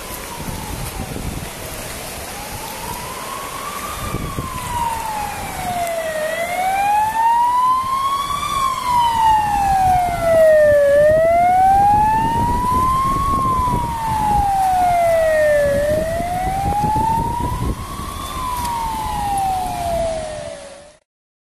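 A siren wailing, sliding slowly up and down in pitch about every four and a half seconds, louder after the first several seconds, over the steady rush of the flooded river. It cuts off abruptly near the end.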